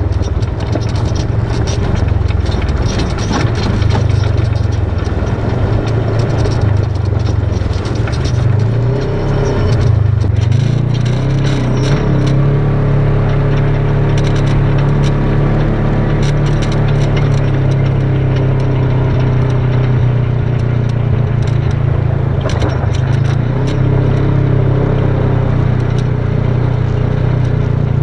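Polaris RZR side-by-side's engine running as it drives over a rocky dirt trail, with scattered knocks and crunches from the tyres on gravel. The engine note steps up in pitch about ten seconds in and then holds steady.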